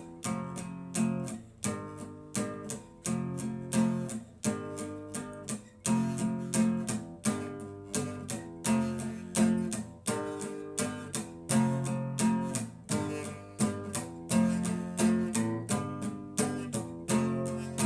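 Instrumental passage of a song: an acoustic guitar strumming chords in a steady rhythm.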